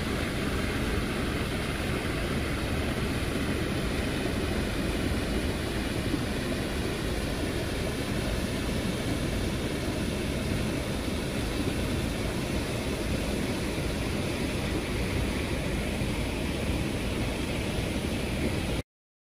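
Water pouring over a small weir into the pool below: a steady, even rushing noise that cuts off abruptly near the end.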